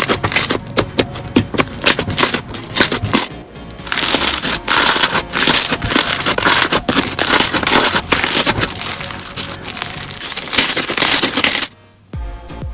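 Crunchy slime being squeezed and pressed by hand, giving a dense run of crackles and pops. The crackling stops abruptly near the end as a quieter, lower-pitched sound takes over.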